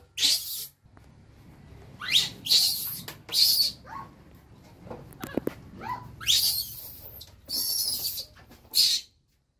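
Baby macaque screaming in short, harsh, high-pitched cries, about eight of them spread over several seconds, some sliding down in pitch: the distress cries of an infant monkey left on its own.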